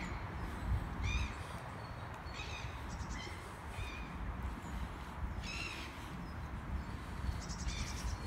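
Birds giving a series of short calls, several in a few seconds at uneven spacing, over a steady low rumble.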